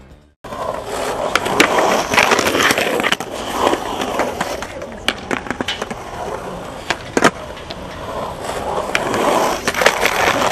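Skateboard wheels rolling on a concrete bowl, with sharp clacks and knocks of the board and trucks on the bowl's edge, starting about half a second in.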